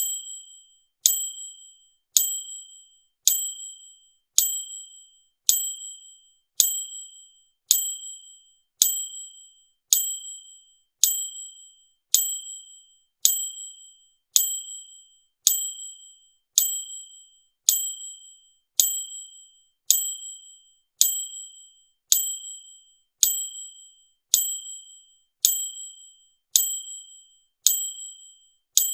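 A high, bright ding chime repeated at an even pace, about once a second. Each ding strikes sharply and fades out quickly.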